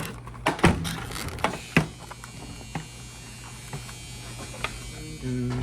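Scattered sharp clicks and knocks of refrigerator parts being handled and fitted, over a steady low electrical hum that gets louder near the end.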